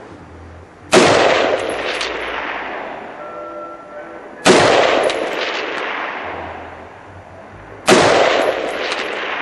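Three rifle shots from a bipod-mounted rifle fired prone, about three and a half seconds apart. Each crack is followed by a long echo rolling away over two seconds or more.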